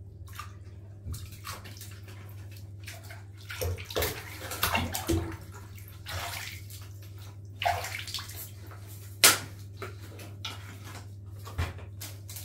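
Bath water splashing and sloshing in a bathtub as a baby moves in it, in irregular splashes with the sharpest about nine seconds in, over a steady low hum.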